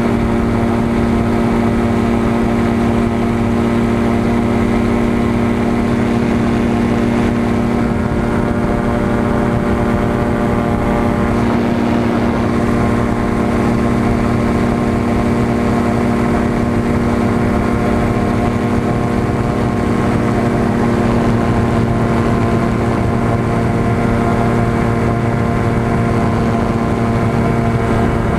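Aerolite 103 ultralight's engine and propeller running steadily in level flight, a constant droning hum that holds an even pitch throughout, heard from the open cockpit.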